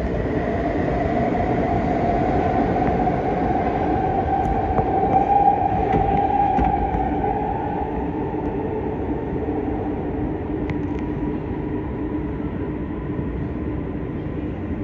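Siemens C651 metro train accelerating out of an underground station into the tunnel, with a rising motor whine over the steady rumble of wheels on rail. The sound is loudest about five seconds in and slowly fades as the train draws away down the tunnel.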